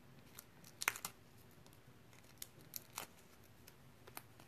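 Faint rustling and a few small clicks as a paper punch-out and foam adhesive dimensionals are handled, the sharpest click about a second in.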